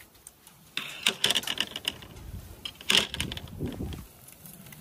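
Metal kebab skewers clattering and clinking against each other and the grill as they are handled and turned over charcoal, in quick clusters of clicks about a second in and again around three seconds.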